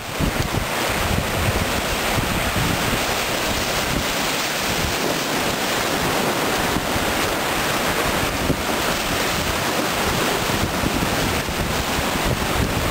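Whitewater rapids rushing and churning steadily around a cataraft riding through them, with wind buffeting the microphone in an uneven low rumble.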